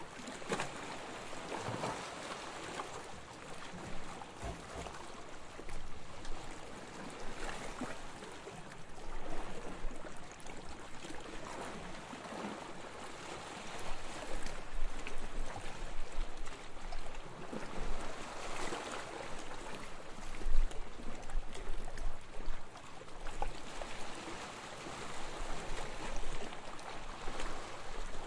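Gentle waves washing onto a beach: a continuous noisy wash that swells softly every few seconds, with some low rumble.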